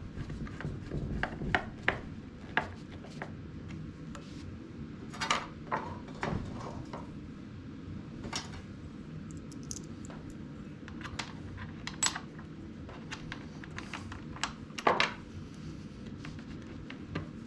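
Scattered light clicks, taps and knocks of small hard objects being handled, the loudest clusters about five seconds in and near the end, over a steady low hum.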